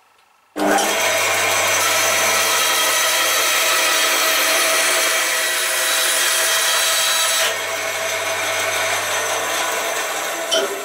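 Band saw ripping a strip of wood to width along the fence: a steady cutting sound over the motor's low hum. It starts suddenly about half a second in and drops somewhat about seven seconds in.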